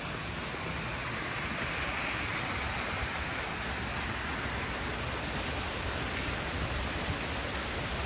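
Steady rush of flowing water from a mountain stream in the wooded valley below.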